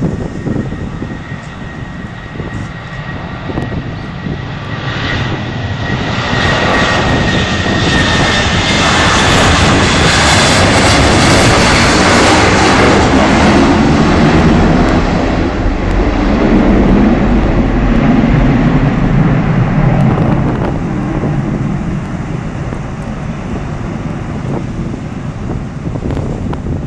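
Boeing 757-300's twin jet engines at high power as it passes on its take-off run. The sound builds to a loud peak about halfway through, with a high whine fading out, and then eases to a lower rumble as it moves away.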